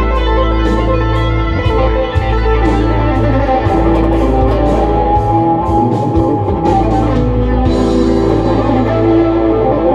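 Electric lead guitar improvising over a backing track of drums and bass. The guitar is a Gibson Les Paul played through a Mesa/Boogie amp. It plays held and moving single-note lines against a steady bass and a regular drum beat.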